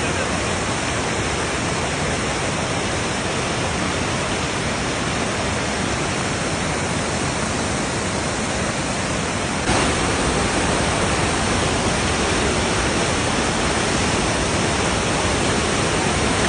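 Steady rush of fast-flowing river water, a little louder from about ten seconds in.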